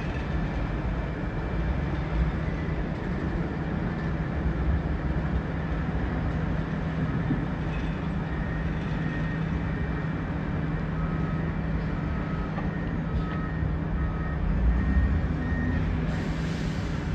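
Heavy diesel log-yard machinery, including a wheel loader carrying logs, running with a steady low drone. A backup alarm beeps about once a second in the second half, and a short hiss comes near the end.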